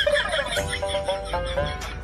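Background music: a light, bouncy melody of short notes, several of them sliding up into pitch, over a steady beat.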